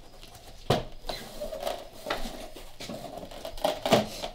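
A Lexus IS F's stock plastic trunk spoiler being worked up off the trunk lid: several sharp clicks and cracks as its small retaining clips pop free, with scraping and creaking in between. The loudest cracks come about a second in and near the end.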